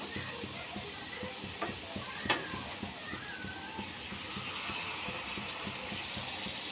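Jalebi batter frying in hot oil in a nonstick tawa: a steady sizzle with crackling and bubbling, showing the jalebis are still frying and not yet cooked through. A single sharp click sounds about two seconds in.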